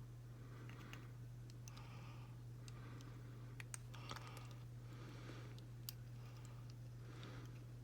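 Faint light clicking and ticking of miniature pebbles being pushed around while a tiny fish stand is pressed into them, over a steady low electrical hum.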